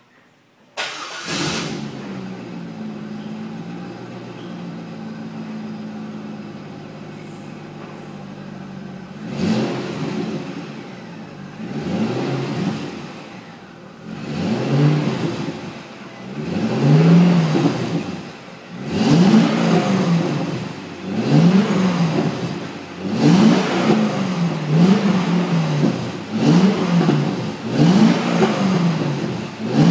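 Chevrolet Corvette convertible's V8 engine starting up through a loud exhaust about a second in, then idling steadily. From about nine seconds in it is revved again and again, each rev rising and falling in pitch, coming every second or two and closer together toward the end.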